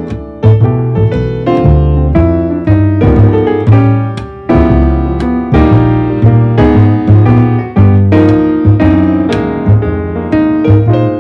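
Background piano music: a steady run of struck notes and chords over a low bass line.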